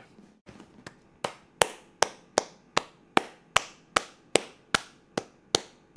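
One person clapping slowly and evenly, about two and a half claps a second, starting about a second in.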